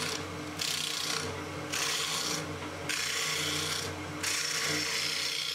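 Wood lathe running with a steady motor hum while a gouge cuts a spinning piece of pale wood, the shavings hissing off in repeated passes about a second long with short breaks between them.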